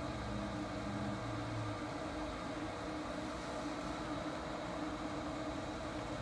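Steady machine hum over a constant hiss of background noise, with a lower drone that fades out about two seconds in.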